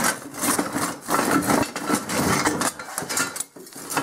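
Cast iron exhaust manifold and steel jig pieces clanking, knocking and scraping against each other as the broken casting is worked loose and lifted out of the fixture.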